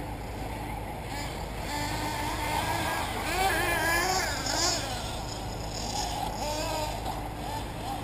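Radio-controlled off-road model cars racing on a dirt track, their motors whining up and down in pitch as they accelerate and brake through the corners, loudest around the middle.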